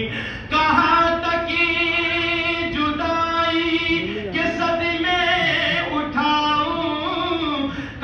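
A man's voice chanting through a headset microphone and loudspeakers, holding long notes with wavering ornaments between short breaths.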